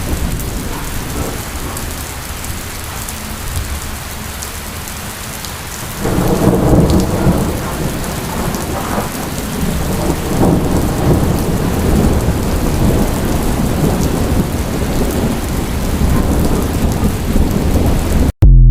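Heavy rain falling steadily with thunder rumbling low underneath; the storm grows louder about six seconds in. Near the end the sound drops out for an instant, then a brief loud thump.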